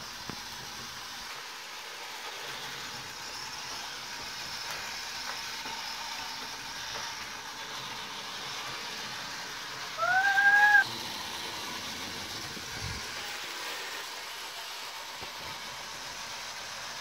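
Battery-powered Tomy Thomas the Tank Engine toy train whirring faintly and steadily on plastic track. About ten seconds in, a single short whistle-like call rises in pitch and then holds for under a second.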